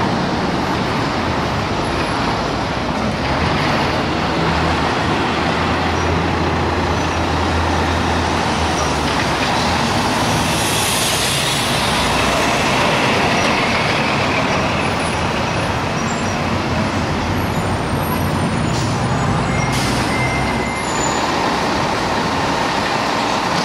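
Heavy diesel vehicles in city traffic: a fire ladder truck and a city bus pass close, engines running over road noise. A hiss of air brakes comes about ten seconds in.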